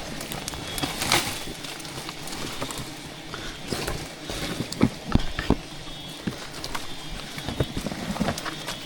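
Irregular knocks and clicks over steady rustling, with the loudest knocks about a second in and again about five seconds in.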